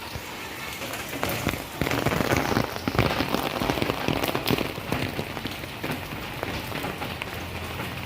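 Rain falling on surfaces: a steady hiss full of small drop ticks, growing louder from about two seconds in and easing off again about five seconds in.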